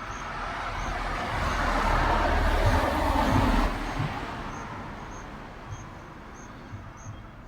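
A road vehicle passing by: a swell of road noise that builds, peaks about three seconds in and fades away.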